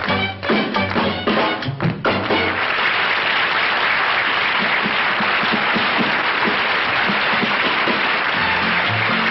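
A country dance band finishes a lively square-dance tune on a final chord about two seconds in, and a crowd breaks into steady applause.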